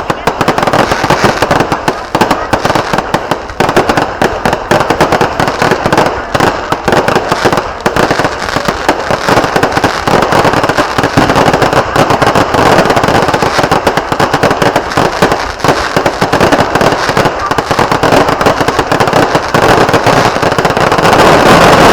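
Fireworks going off in a dense, unbroken barrage of rapid bangs and crackles.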